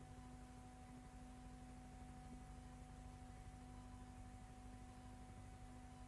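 Near silence: a faint steady hum with a few constant tones over low hiss, on the soundtrack of a silent film.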